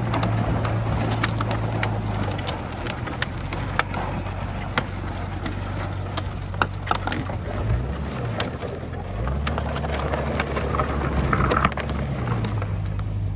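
Jeep Cherokee engine running at low speed, its pitch rising and falling several times as it tows a collapsed barn wall on a rope. Scattered sharp clicks and cracks sound over it.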